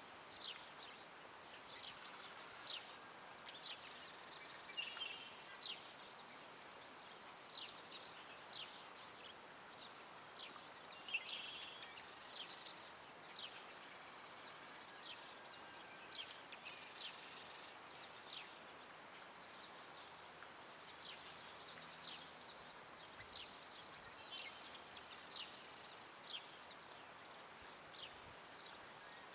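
Faint, scattered short bird chirps and a few brief warbled notes, coming irregularly several times a second over a quiet outdoor background.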